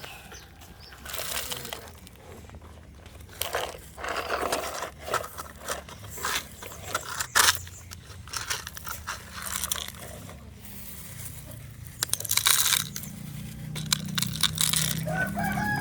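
Toy excavator scraping and crunching through loose soil in irregular bursts. A rooster starts crowing right at the end.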